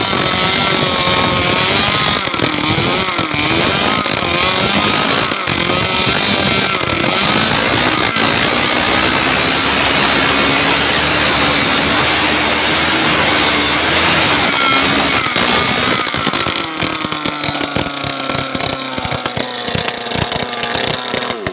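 Small two-stroke Robin petrol engine running at high revs, driving a 6 cm four-blade propeller on a stainless shaft in water, with the water churning and splashing. Its pitch wavers as the propeller bites the water and loads the engine slightly. Near the end the running eases off, then the engine stops abruptly.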